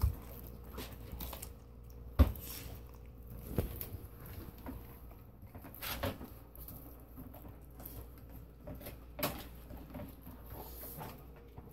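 A Carolina dog gnawing and chewing a partially frozen chunk of raw meat, with irregular sharp crunches of teeth on frozen meat every second or two, the loudest near the start and about two seconds in.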